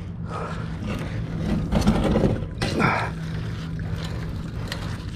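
A steady low engine hum, with a few short scraping, rustling noises over it.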